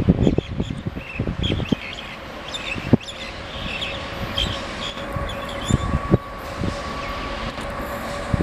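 WAG-9 class electric locomotive approaching with a container train, its steady whine setting in about halfway through and growing louder. Birds chirp through the first half, and brief low thumps are scattered throughout.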